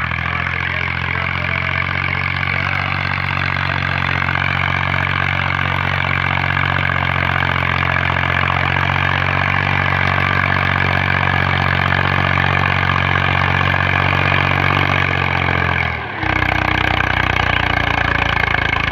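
Massey Ferguson MF 240 tractor's three-cylinder diesel engine running steadily under load while pushing soil with a front blade. About sixteen seconds in the sound drops out briefly, and the engine note is different afterwards.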